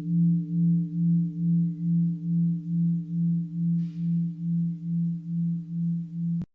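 Meditation bell, a bell of mindfulness, ringing out after a strike: a low hum with a few higher overtones that pulses a little over twice a second and slowly fades, then cuts off abruptly near the end.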